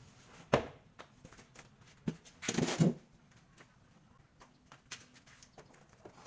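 Handling noises: a sharp click about half a second in, a knock near two seconds, then a half-second scrape or rustle, with scattered small taps.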